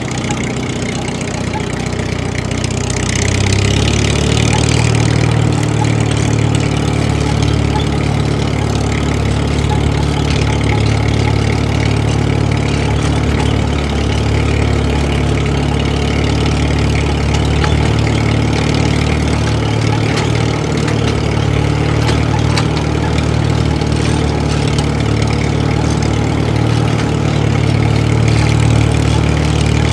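An engine running steadily with a low hum, growing louder about three seconds in and then holding.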